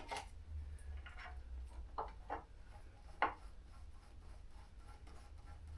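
A few light clicks and knocks of tools and parts being handled while refitting a motorcycle brake caliper, three of them about two to three seconds in, the last the sharpest, over a steady low hum.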